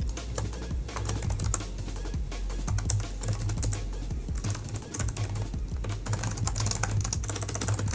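Fast typing on a computer keyboard: a dense run of quick key clicks, over background breakcore music with a pulsing low bass.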